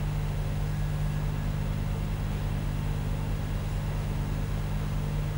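A steady low hum made of a few fixed low tones over a faint hiss, like a machine or electrical background noise.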